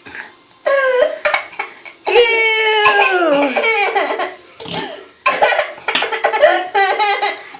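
Toddler laughing in repeated high-pitched bursts, some of them sliding down in pitch.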